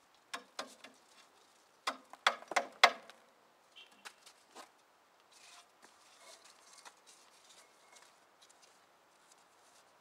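Metal clanks and clicks of a mini bulldozer's slackened metal track and drive sprocket being worked by hand to get the track off: a few knocks early, a quick run of five or six louder clanks about two seconds in, then a few lighter clicks and faint scraping.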